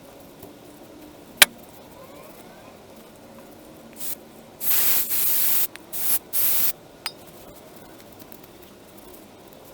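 A sharp click, then four bursts of hissing spray about three seconds later, the longest about a second.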